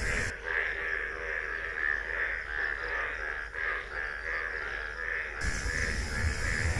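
An animal calling in a steady rhythm, about two calls a second.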